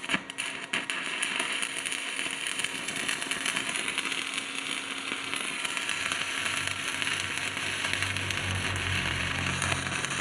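Stick (MMA) arc welding with a 3.2 mm electrode at about 140 A on a BTEC 200A inverter welder. The arc catches after a few sharp strikes in the first second, then burns with a steady crackle.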